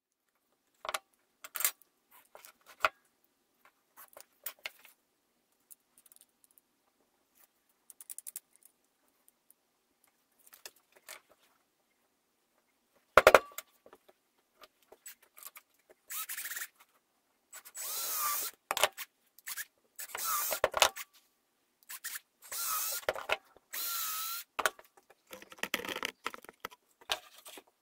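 Wooden boards and tools being handled on a workbench: scattered clicks and light knocks, one sharp knock about halfway through, then a run of short scraping and sliding noises as boards are pushed across the bench.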